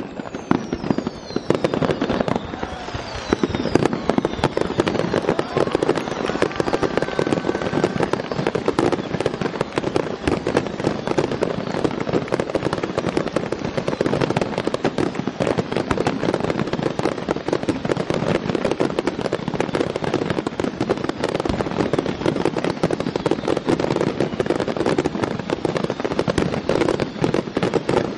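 Fireworks finale: a dense, unbroken barrage of aerial shells bursting, many booms and crackles a second. A few whistles glide down in pitch in the first few seconds.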